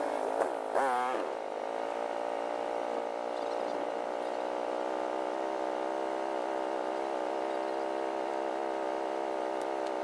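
An engine running steadily at idle, its pitch held constant.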